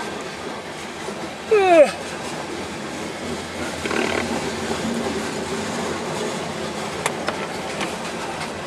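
Freight train of tank cars and boxcars rolling past at close range, a steady rumble and rattle of wheels on rail. About a second and a half in, a short voice-like sound falls sharply in pitch and is louder than the train.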